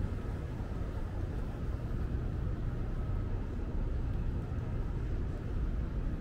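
Steady low rumble of background ambience, without any distinct event.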